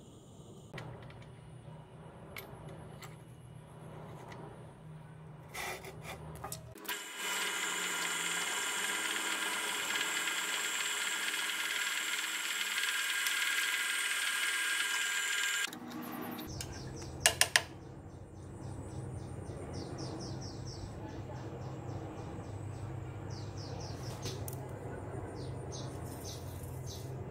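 Bench drill press cutting a hole through a metal bolt clamped in a vise: a steady, high-pitched drilling sound lasting about nine seconds that stops suddenly. A low hum runs before and after it, and three sharp clicks come a little after the drilling stops.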